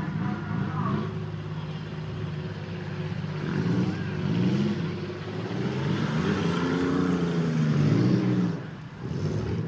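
Several dirt-track race cars' engines running and revving together, their pitches rising and falling as they accelerate and lift around the track. The sound grows toward the loudest point a little before the end, then drops briefly.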